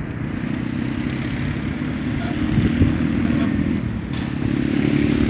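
A small engine running steadily with a low hum that gets louder near the end.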